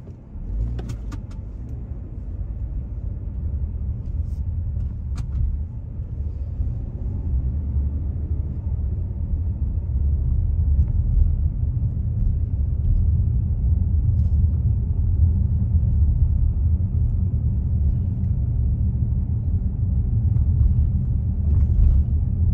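Car cabin noise while driving: a steady low rumble of engine and tyres on the road that grows louder over the first several seconds as the car picks up speed, then holds. A few light clicks sound about a second in.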